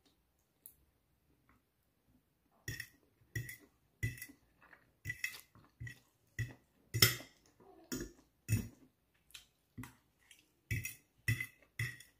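Eating sounds: a run of short clicks and smacks, about one and a half a second, starting nearly three seconds in. They come from a fork clinking and scraping on a plate as noodles are twirled, mixed with chewing.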